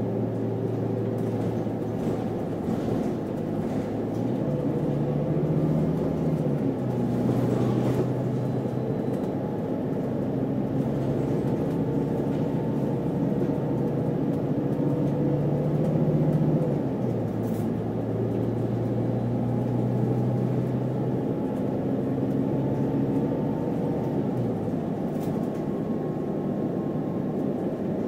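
City feeder bus engine running on the move, with a steady low drone over road rumble. The engine note steps up and drops back twice, at about five and fifteen seconds in, and eases off near the end.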